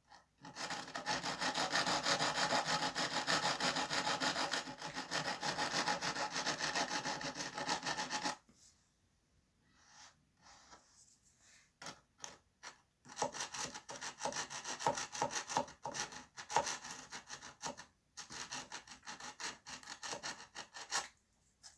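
Small hand sanding stick rubbed rapidly back and forth on thin wooden dollhouse trim, smoothing a repair. It sands steadily for about eight seconds, then after a pause goes on in shorter runs of strokes.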